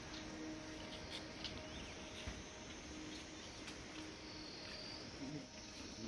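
Faint open-air ambience: a steady hiss with a few short, high chirps about a second in.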